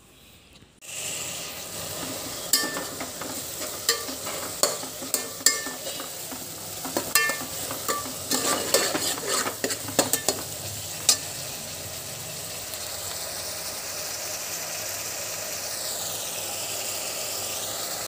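Chopped onions and tomatoes frying in oil in a metal pot, sizzling steadily. A steel ladle stirs them, clinking and scraping against the pot many times until about the middle, after which only the sizzle goes on.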